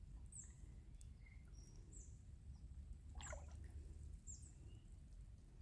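Quiet outdoor ambience with a bird's short, high, falling chirps repeating every second or two. There is a brief rustle about three seconds in.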